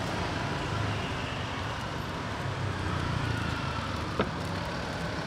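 Steady road traffic noise with a low rumble, and a single short click about four seconds in.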